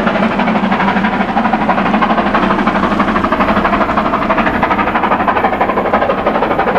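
Passing steam-hauled train: coaches rolling along the rails, with the exhaust of the BR Britannia class pacific 70013 working hard up the bank carrying from ahead. The sound is loud and steady, made up of fast, even pulses.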